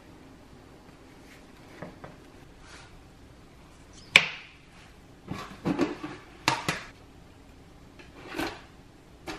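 Scattered knocks and clatters of objects being handled and set down in a small room: a sharp knock about four seconds in, a quick run of them between five and seven seconds, and one more near the end.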